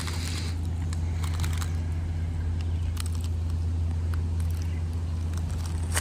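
A steady low rumble holds at an even level throughout, with a few faint crackles of footsteps on dry ground.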